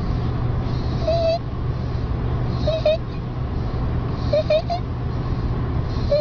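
Stridor: a high-pitched, squeaky crowing tone that comes with each breath, three or four times about every second and a half to two seconds, with a breathy rush alongside it. A steady low hum runs underneath.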